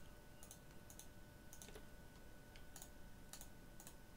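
Near silence with several faint, irregularly spaced computer mouse clicks as mask points are placed one by one, over low room hiss and a faint steady hum.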